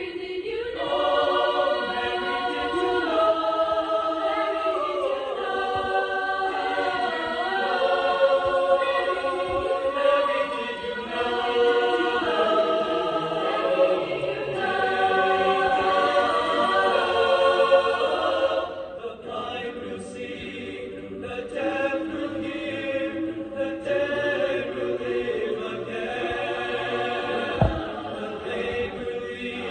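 Choir singing held chords that move from note to note, dropping to a softer passage about two-thirds of the way through.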